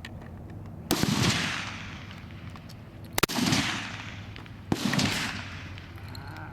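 Three rifle shots on a long-range firing line, about a second and a half to two seconds apart, each sharp crack followed by a rolling echo that fades over about a second.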